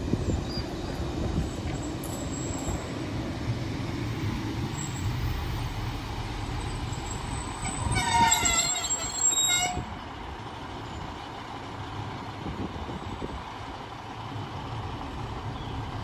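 Northern Class 150 diesel multiple unit running in and slowing to a stop, with a steady low rumble from its underfloor diesel engines and wheels on the rails. About eight seconds in, the brakes squeal loudly for nearly two seconds, the pitch falling slightly as the train comes to rest.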